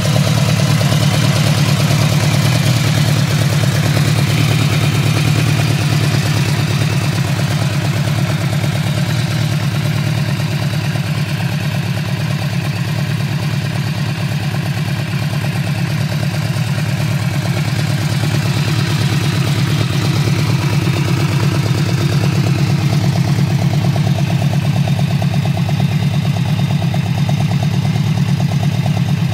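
Yamaha VMAX's V4 engine idling steadily.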